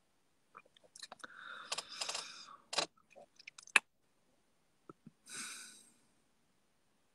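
A run of sharp clicks and short rustles close to the microphone, then a single short hiss about five seconds in.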